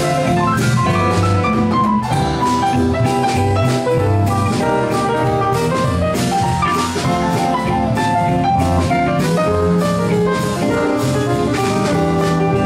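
Small jazz band playing an instrumental passage, with piano and archtop electric guitar over bass and percussion keeping a steady beat.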